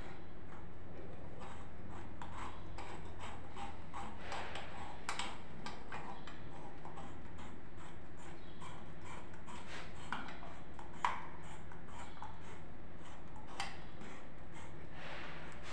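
Light metallic clicks and scrapes as a chrome shower mixer's coupling nuts are threaded by hand onto the wall connectors, with one sharper tick about eleven seconds in, over a steady low hum.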